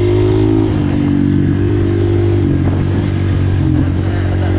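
Dirt bike engine running while riding along, holding steady revs, easing off about a second in and picking up again near the end.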